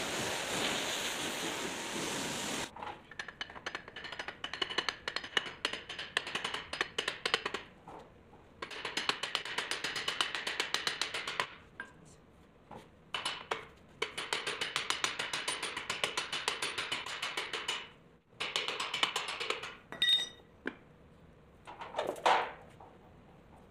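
A brief rushing noise, then several bursts of rapid metallic clicking and rattling a few seconds each, with a faint high ringing, as the head of a bench drill press is worked by hand.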